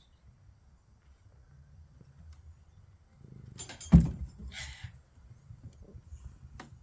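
A sleeping cat's low, steady rumble of snoring and purring. A loud thump comes about four seconds in, followed by a short breathy hiss.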